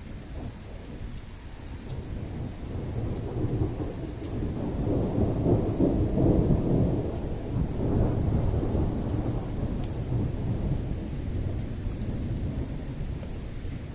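A long roll of thunder from a nearby thunderstorm. It builds over a few seconds, is loudest around the middle, then slowly rumbles away, with rain falling underneath.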